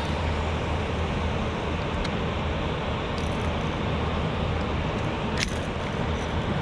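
Steady low hum with a rushing hiss, and a few sharp metallic clicks, about two and five seconds in, as long-nose pliers work a lure's hooks out of a white bass's mouth.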